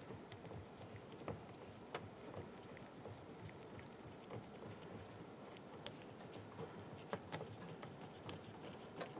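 Faint, irregular small clicks and taps as a Ford Explorer Sport Trac's door lock knob is turned by hand and unscrewed off the threaded lock rod.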